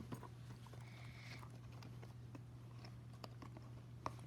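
Small plastic fidget toys being handled and pulled from a purse: scattered faint clicks and light rustles over a steady low background hum.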